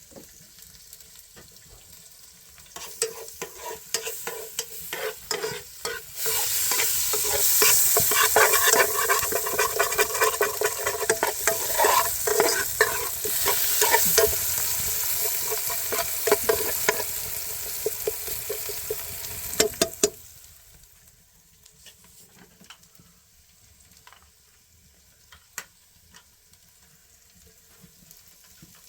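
Food sizzling in a pan while being stirred, with many quick clicks. The sizzle swells loud a few seconds in and cuts off abruptly about two-thirds of the way through, leaving a quieter stretch of scattered clicks.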